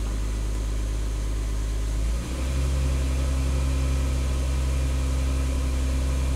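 2010 Honda Ridgeline's 3.5-litre V6 running steadily, its speed stepping up a little over two seconds in and then holding at about 1,300 rpm.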